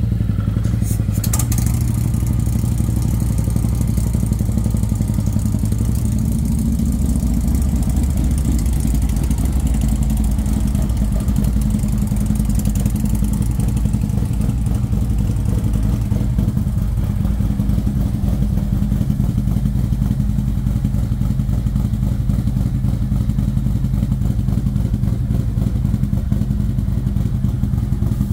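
Harley-Davidson bagger's V-twin engine idling steadily, with a few light clicks about a second in.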